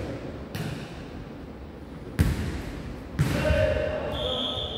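A jokgu ball being kicked and bouncing on a wooden gym floor: three sharp hits, the loudest about two seconds in, ringing on in the large hall.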